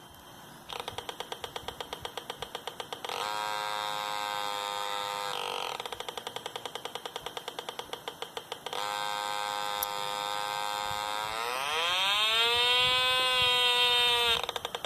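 Electronic creaking sound from a light-sensor-controlled circuit's small speaker. It switches between a rapid clicking creak of about eight clicks a second and a steady electronic buzz, as the light sensor is shaded and uncovered. Near the end the buzz glides up in pitch and grows louder, then levels off.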